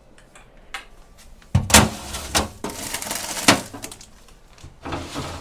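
Food containers being shifted around inside an open refrigerator, knocking and clattering with some rustling. There is a loud knock about a second and a half in and another sharp one about two seconds later.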